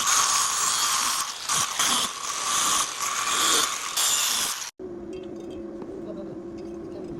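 A loud, harsh mechanical rattling noise that cuts off abruptly about two-thirds of the way through, leaving a quieter low steady hum.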